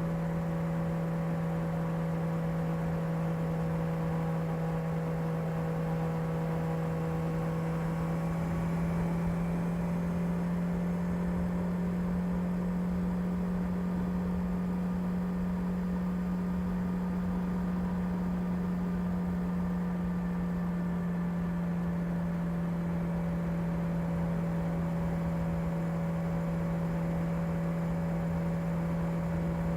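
Kawasaki ZR-7S inline-four engine running at steady revs, a constant even hum whose pitch rises slightly about eight seconds in and settles back down near the end.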